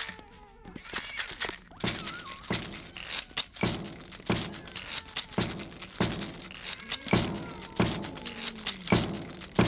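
Rhythmic stomping and clapping for a flamenco-style dance-off, a heavy beat about every 0.6 seconds. Short sliding pitched calls sound between the beats.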